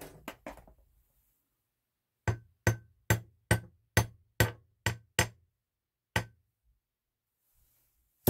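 Small hammer tapping a short piece of solid copper wire to flatten it. There are eight sharp taps at about two to three a second, then one more after a pause of about a second.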